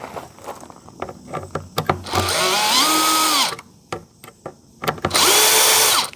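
Power drill backing out the door-handle and deadbolt-plate screws: two short runs of the motor, each spinning up, holding and winding down, with light clicks of handling between them.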